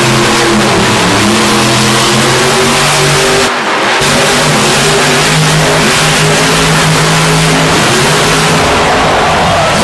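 Monster truck's supercharged V8 held at high revs as the truck spins on the dirt, with a brief lift off the throttle about three and a half seconds in before it pulls hard again.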